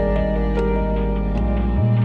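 Calm ambient background music: sustained keyboard and plucked notes over a bass line.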